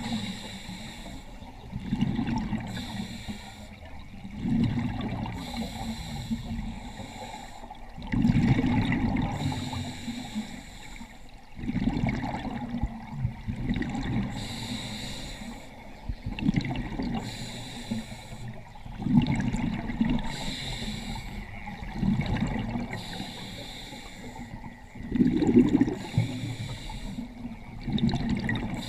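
Underwater breathing through a scuba regulator: a hissing inhale, then a loud rush of exhaled bubbles, repeating in a slow, regular cycle every few seconds.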